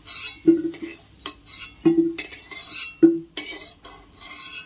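A spatula knocking and scraping against a kadai while potatoes are stirred in hot oil, each knock ringing briefly, about one every half second to second, with frying sizzle between them.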